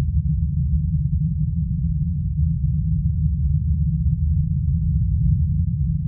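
A steady low drone, all of it deep in pitch with nothing higher, holding even throughout.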